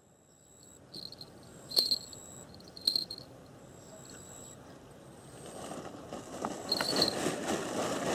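Small bells on fishing-line bite indicators jingling briefly about four times as a fish tugs the line, over a rustling that grows louder in the last few seconds.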